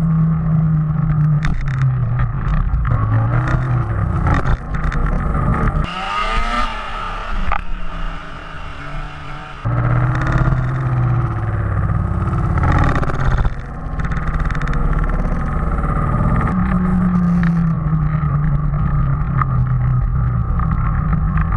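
Snowmobile engine running along a trail, its pitch rising and falling as the throttle is worked. It eases off for a couple of seconds around the middle, then picks up again.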